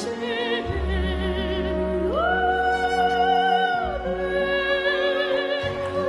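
A young girl singing in a classical operatic soprano style with vibrato over instrumental accompaniment; about two seconds in she rises to a high note and holds it for nearly two seconds before dropping back down.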